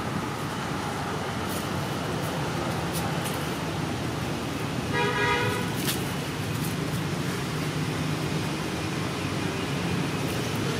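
Steady traffic noise, with one short horn toot about five seconds in.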